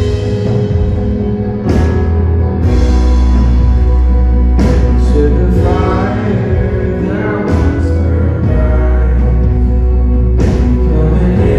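Live church worship band playing a song: drum kit with a cymbal crash about every three seconds, a heavy electric bass and held keyboard chords, with women singing the melody.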